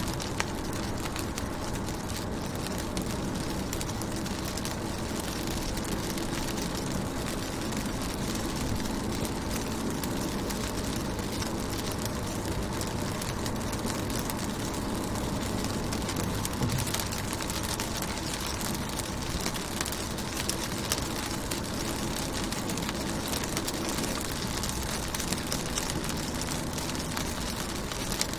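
Rain falling on a car's window and body: a steady hiss with many small drop ticks and a low rumble underneath.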